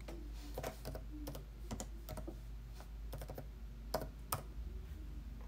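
Irregular light clicks and taps of a computer keyboard and mouse, a few scattered through, with two sharper clicks about four seconds in.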